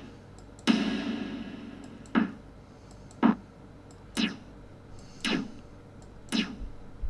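Snare drum one-shot samples auditioned one after another, six hits about a second apart; the first rings out with a long reverb tail.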